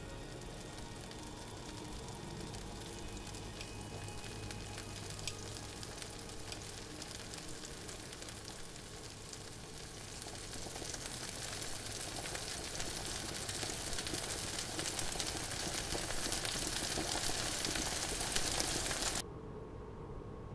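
Bacon and a fried egg sizzling in a frying pan, the crackle growing louder over the second half and cutting off suddenly near the end.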